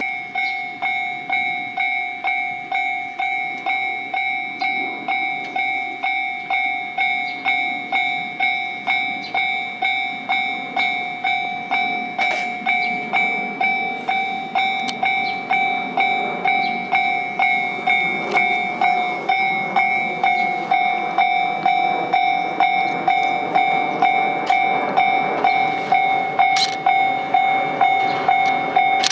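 Japanese railway level-crossing alarm ringing: an electronic bell struck about twice a second over a steady ringing tone. An electric commuter train's running noise sits low underneath.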